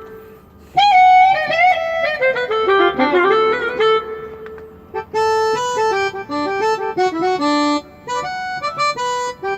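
Keyboard synthesizer playing a sampled banda reed-instrument patch: a melodic phrase that slides down in pitch about a second in, then quick runs of short detached notes from about five seconds in.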